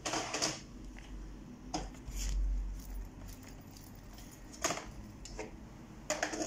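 An HP ProBook 4530 laptop being handled and turned over: scattered clicks, knocks and light clinks of its casing against the desk and hands, with a low rumble about two seconds in.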